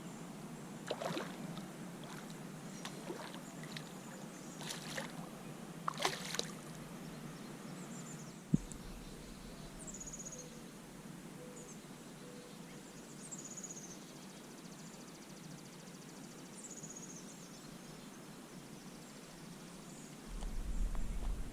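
Faint outdoor pond ambience. A few light clicks and knocks come in the first several seconds, then short high chirps at intervals. A low rumble, like wind on the microphone, comes in near the end.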